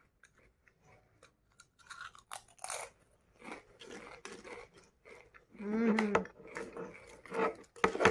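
Pringles potato crisps being crunched and chewed in the mouth, in a run of short crisp crunches. A short hum of the voice comes about six seconds in.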